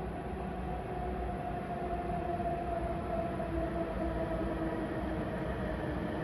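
Hokuriku Shinkansen bullet train approaching the station. Its low rumble grows slowly louder, with a held whine that sinks slightly in pitch.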